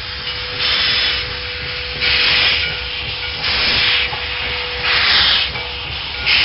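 Steam locomotive chuffing slowly: hissing exhaust beats about every one and a half seconds over a steady hiss and a faint hum.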